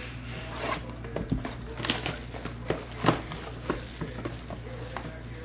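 Plastic wrap on a trading-card hobby box being slit with a blade and crinkled as it is pulled off, with scattered sharp clicks and rustles of the cardboard box being handled.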